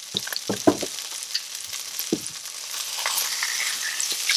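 Strip steak searing in oil in a non-stick cast-aluminium frying pan, with a steady high sizzle. In the first second come a few sharp clicks and knocks of tongs against the pan, and another about two seconds in. The sizzle grows louder about three seconds in as the steak is lifted to be flipped.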